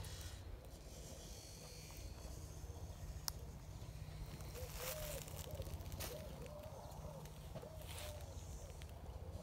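Faint footsteps on dry leaves and grass, a few scattered crunches. About five seconds in, a low call repeats several times in short wavering notes.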